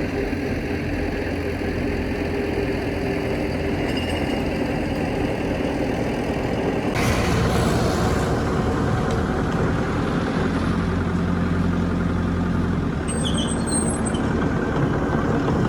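Heavy diesel engine of construction equipment running steadily. About seven seconds in there is a short hiss, and the engine note changes.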